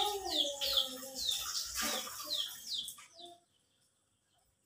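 A bird chirping over and over: short, high notes that slide downward, two or three a second, stopping about three seconds in.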